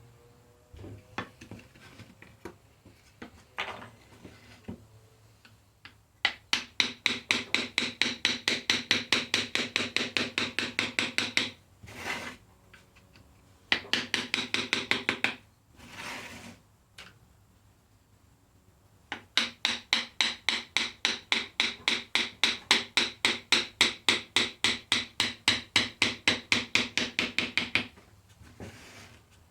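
A hand tool worked back and forth on wood in fast, regular strokes, about four or five a second, in three runs with pauses between them, the longest near the end; a few single knocks come before the first run.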